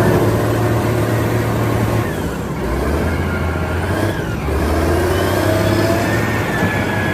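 Wheel loader engine running and revving, its pitch shifting up and down a couple of times.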